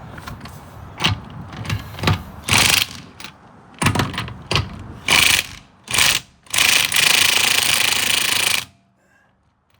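Impact driver hammering on a car's wheel lug nut to break it loose: several short trigger bursts, then one longer run of about two seconds that stops abruptly near the end.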